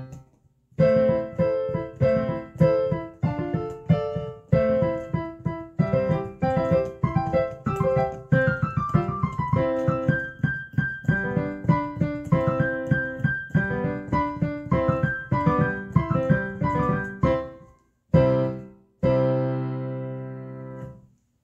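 Background piano music: a melody of struck notes, breaking off briefly near the start and again near the end, then closing on a held chord that fades out.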